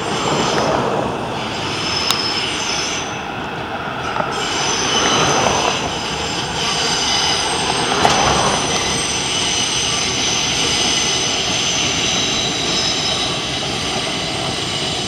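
New York City subway train passing along the embankment. It runs as a steady rumble and clatter, with high-pitched steel-wheel squeal held through most of the pass.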